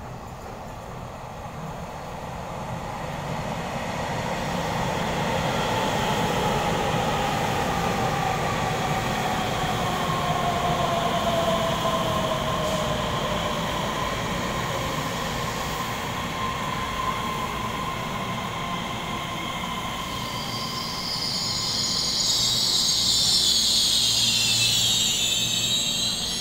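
Taiwan Railways EMU3000 electric train pulling into an underground station platform. Its rumble grows louder as it comes in, with a whine that falls in pitch as it slows. Near the end a loud, high squeal rises as it brakes toward a stop.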